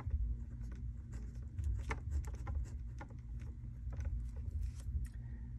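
A pen writing on paper: a string of short, light scratching strokes and ticks as the words are written, over a low steady hum.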